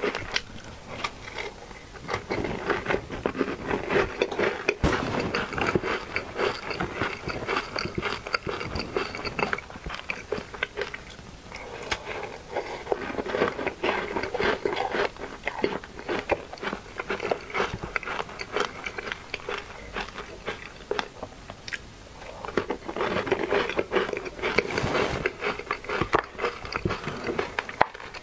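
Biting and chewing a crisp, sesame-topped bread spread with soft milk cream: crunchy, crackly mouth sounds in bouts, easing off twice before picking up again.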